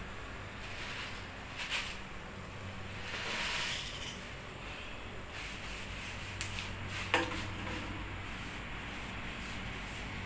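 Soft rustling and scraping as cat food is handled and put down for stray cats, with a few small clicks and one sharp click about seven seconds in, over a steady low hum.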